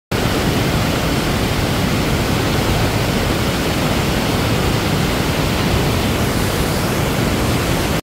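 Waterfall and rapids rushing steadily: a heavy flow of mountain-stream water pouring down a rock chute into a pool and over rocks.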